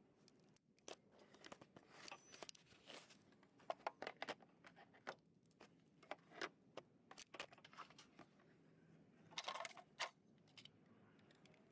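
Faint, scattered clicks and short rattles of hand tools and metal parts being handled while the alternator is being fitted, with a brief cluster of rattling near the end.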